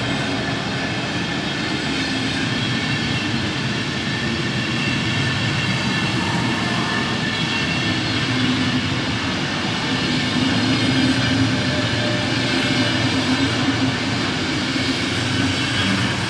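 DB Intercity passenger coaches rolling past on steel wheels: a steady rumble and rush of wheels on the rails, a little louder in the second half.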